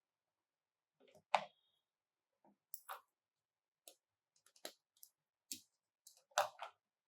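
Small plastic toy pieces being handled and set down: a scattered series of sharp clicks and taps, the loudest about a second and a half in and near the end, with silence between.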